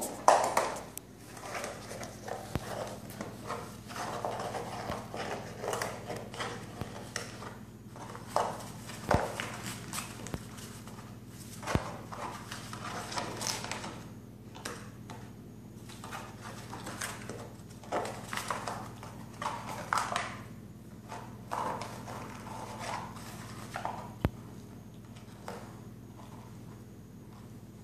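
A cardboard toilet-paper tube and a kitten's paws knocking, tapping and scuffing irregularly on a tile floor as the kitten wrestles and bats at the tube, over a steady low hum.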